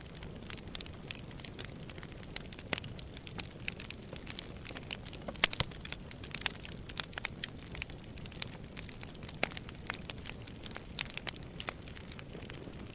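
Fire burning in a fireplace, crackling with irregular sharp pops over a low steady rumble; the loudest pop comes about five and a half seconds in.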